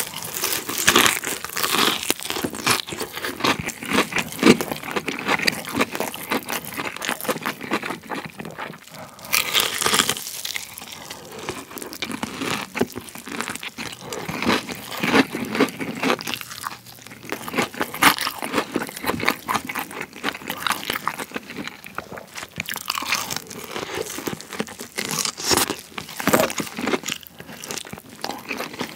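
Close-up crunching and chewing of a crispy deep-fried chicken drumstick (BBQ Golden Olive), the battered skin crackling under each bite, with louder crunches every few seconds.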